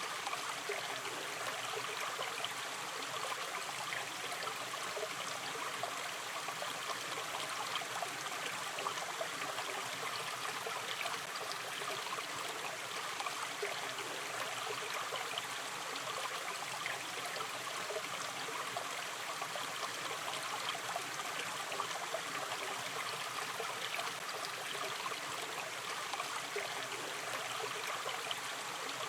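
Shallow river stream running over stones, a steady rush with fine trickling and gurgling throughout.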